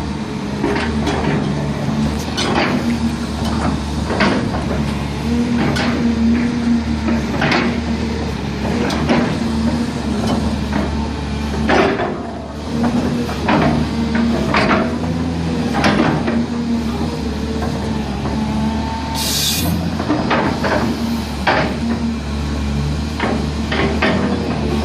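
Hyundai R380LC crawler excavator's diesel engine running steadily under work, with repeated metallic knocks and clanks from the machine every second or two and a short hiss a little past two-thirds of the way through.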